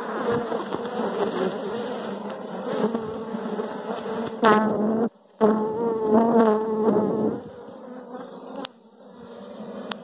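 A mass of honeybees from an opened wild colony buzzing loudly right at the microphone, the pitch wavering as bees fly close past. The buzz cuts out briefly about five seconds in and grows quieter near the end.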